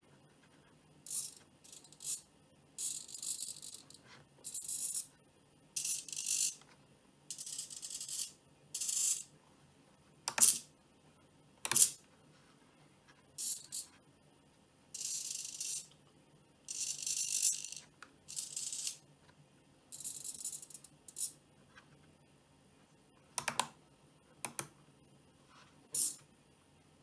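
Small hobby servos of a head-tracking pan-tilt camera mount whirring in short, irregular bursts as the camera is moved, with a few sharp clicks in between.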